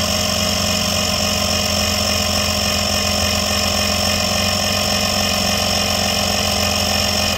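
Onboard 12-volt air compressor running steadily while it fills a truck's airbag suspension system, the pressure climbing slowly. It cuts off abruptly at the end when the switch is released.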